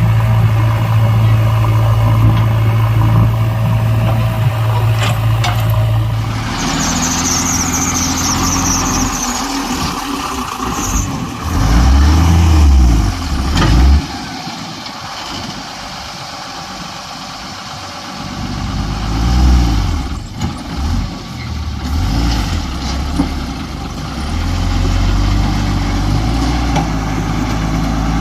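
Diesel engine of a JCB 3DX backhoe loader at work: a steady hum at first, then revving up and dropping back again and again as it digs and loads, loudest about halfway through. A high hiss comes in briefly after about six seconds.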